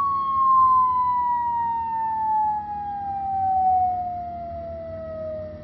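Long falling-whistle sound effect from a rubbish bin's built-in speaker, played as rubbish drops in: one tone sliding slowly and steadily down in pitch, the cartoon sound of something falling a very long way.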